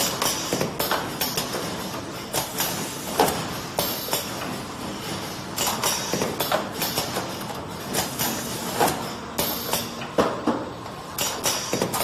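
Rotary cartoning machine running, packing dishwasher-tablet boxes: irregular mechanical clacks and knocks, two or three a second, with short hisses in between.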